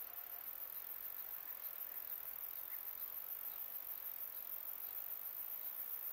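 Insects chirring very high-pitched and steadily, with an even fast pulse, as in a summer field.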